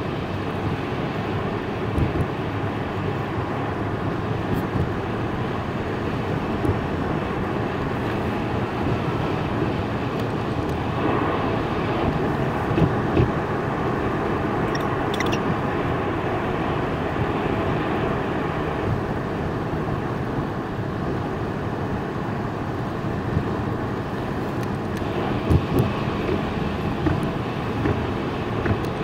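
Steady rushing noise of a car driving at speed on an expressway, with a few short thumps scattered through it.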